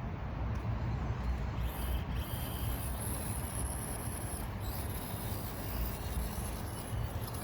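Axial SCX24 Deadbolt mini RC crawler's small electric motor and gears whining high-pitched in two spurts as it drives, over a steady low outdoor rumble.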